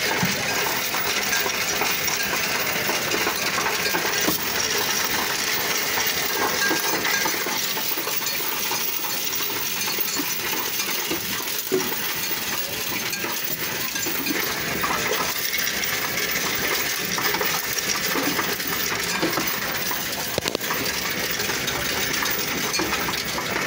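Coinstar coin-counting machine taking a load of mixed loose change. Coins clatter and jingle steadily as they are pushed across the perforated metal tray and counted by the machine.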